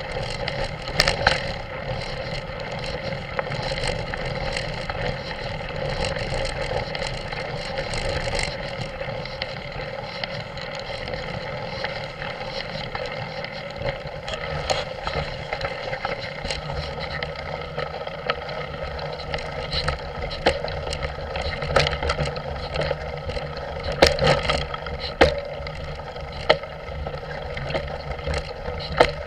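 An off-road vehicle's engine running steadily at low speed, with wind on the microphone. Sharp knocks come every few seconds, more of them in the second half, as the vehicle jolts over the rough track.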